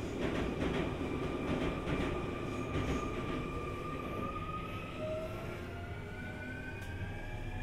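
Sotetsu 20000 series train's Hitachi SiC-VVVF inverter and traction motors whining, the tone slowly rising in pitch as the train accelerates, over the rumble of the car running on the rails. A few wheel clacks come over rail joints in the first few seconds.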